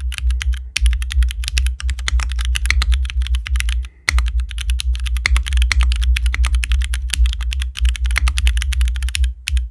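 Typing sound test on a MODE Sixtyfive mechanical keyboard with Cherry MX Black linear switches, GMK ASCII keycaps and an aluminium plate on full lattice flex mounts. Fast, continuous keystrokes pause briefly about four seconds in. The sound is much more muted, the alphas lacking pop.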